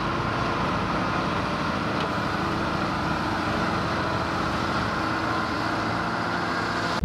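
Diesel engine of a ZL50G wheel loader running steadily, an even, unbroken noise.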